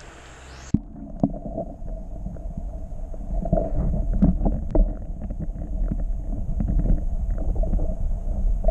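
Muffled low rumble and gurgling of creek water around a camera held underwater, with scattered small clicks and knocks. The sound turns dull, its high end cut off, as the camera goes under less than a second in.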